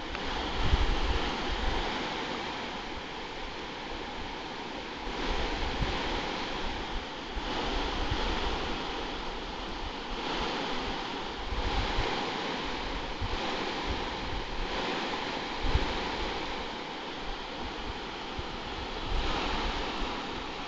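Shallow river rushing over a rocky riffle, a steady wash of water that swells and eases. Now and then a gust of wind buffets the microphone with a low rumble.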